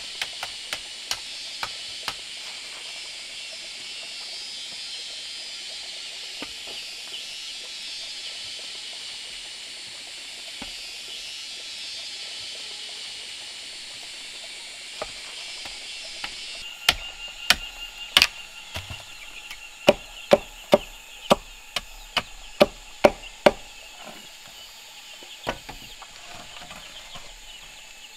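Repeated sharp strikes: a few at the start, then a run of loud ones about two a second for some six seconds, over a steady high hiss, with chickens clucking in the background.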